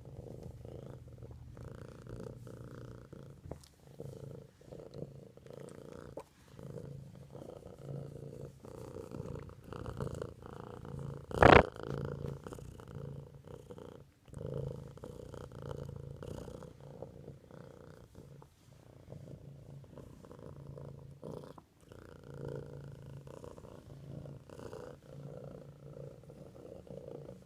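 Domestic cat purring steadily, close up, with short breaks every few seconds. About eleven seconds in there is one short, sharp, loud sound.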